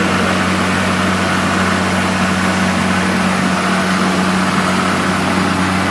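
Snapper 60-volt cordless lawn mower's electric motor running with the blade spinning at a steady speed, not cutting grass: an even hum under a steady rush of air.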